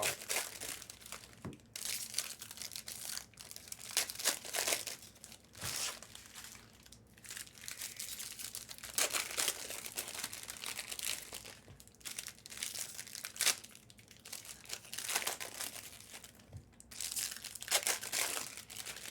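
Trading-card pack wrappers crinkling and being torn open, in irregular bursts of rustling.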